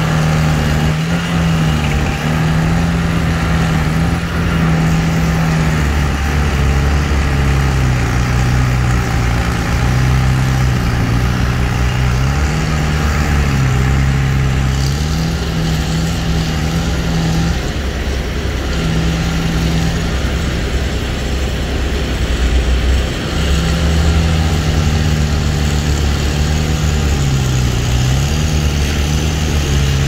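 Engine of the tree crew's equipment running steadily, its speed stepping up and down between two pitches every few seconds.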